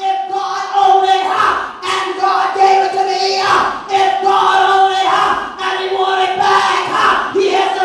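A woman's voice shouting and exclaiming through the church microphone and loudspeakers in short bursts, over a steady, held musical note.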